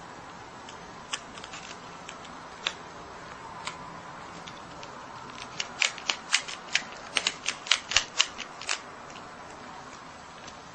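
Marmot crunching on a biscuit. A few scattered crisp crunches come first, then a quick run of loud crunches, about four a second, through the middle before it eases off again.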